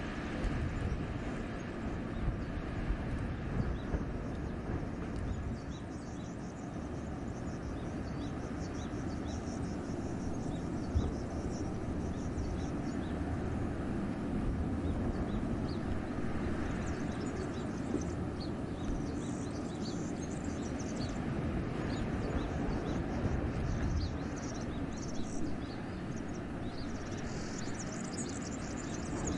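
Wind blowing through a winter forest: a steady, low rumbling rush. High, faint bird chirps come and go over it.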